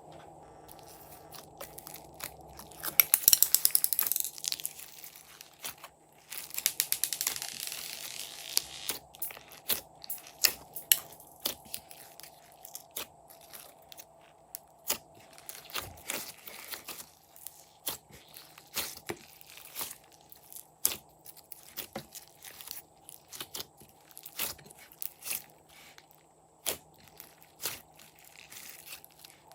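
Glossy slime being squished and stretched by hand, with many sticky clicks and pops and two denser stretches of crackling, about three and seven seconds in.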